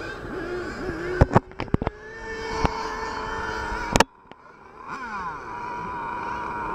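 Small two-stroke engine of a radio-controlled model car running and revving, its pitch rising and falling, with a few sharp knocks about a second and a half in. The sound cuts out abruptly about four seconds in, then the engine comes back in, rising.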